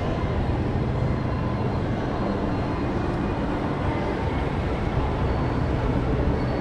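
Escalator machinery running with a steady low hum and rumble.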